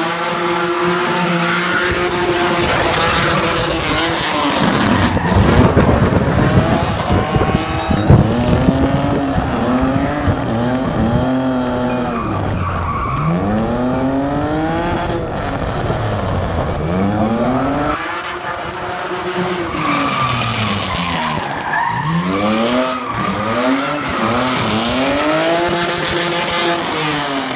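Drift car's engine revving hard, its pitch climbing and dropping again and again as the car is thrown sideways, with the tyres squealing through the slides.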